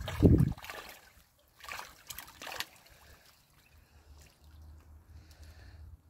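Ducklings paddling in a shallow inflatable paddling pool: light splashing and trickling water, with a cluster of small splashes about two seconds in. A brief low rumble comes at the very start.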